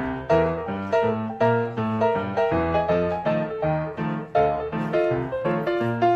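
Background piano music: a bright, steady-tempo tune of plucky struck notes, several to the second.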